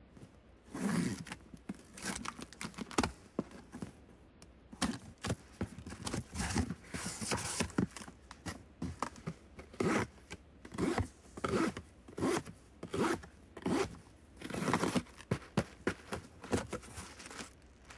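A cardboard box being slit open with a box cutter: a run of short, irregular rasping cuts through packing tape and cardboard, with the flaps scraped and torn open.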